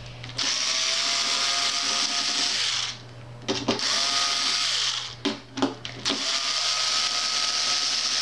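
Electric screwdriver motor whining in three spells, a long run, a short one and another long run, as it backs Phillips screws out of the instrument's top frame. The pitch holds steady within each run.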